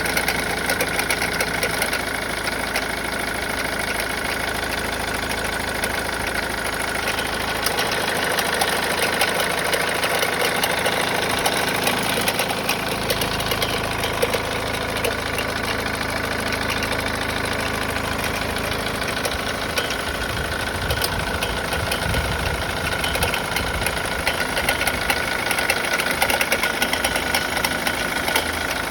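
Mazda Demio's engine running, with an abnormal noise from the alternator: a steady high tone over a dense, even mechanical clatter.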